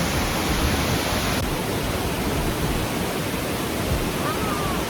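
Steady, loud rushing of falling water, an even roar with no breaks.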